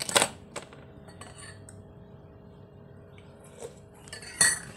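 Metal spoon clinking against a ceramic coffee mug while coffee is stirred: a few sharp clinks, the loudest just after the start, then a single clink and a short louder rush of noise near the end, over a faint steady hum.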